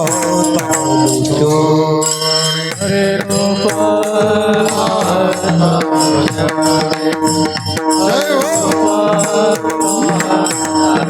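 Bhajan music between sung lines: held melodic notes over frequent drum strokes.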